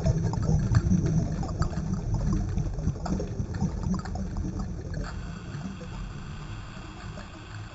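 Underwater water noise: a low rumble with faint crackles in the first few seconds, fading steadily.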